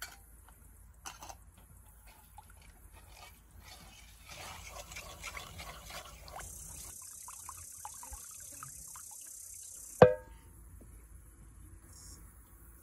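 Cooking-prep handling sounds: a few light clicks, then a trickle of liquid being poured. About ten seconds in comes a single loud clang that rings briefly, cookware being knocked or set down.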